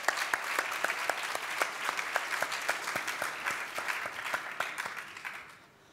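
Audience applauding: many hands clapping densely, then thinning and fading away near the end.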